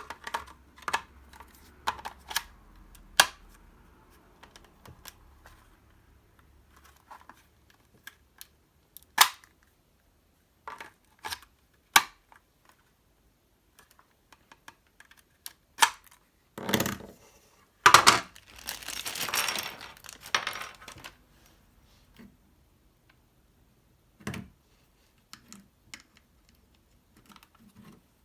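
Scattered clicks and knocks of small plastic and metal parts being handled and set down, with a few seconds of scraping and rustling a little after the middle.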